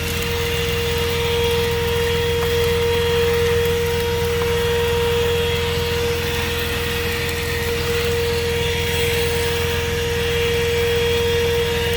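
ThisWorx 12-volt handheld car vacuum running steadily, a high even whine over a rush of air.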